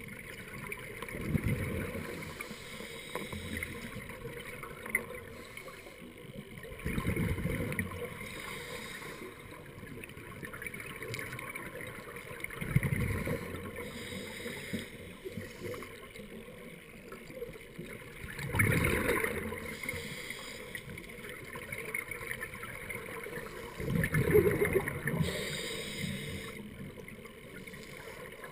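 Scuba regulator exhaust bubbles from a diver's breathing underwater: a gurgling rush of bubbles about every five to six seconds, five times, with quieter water noise between breaths.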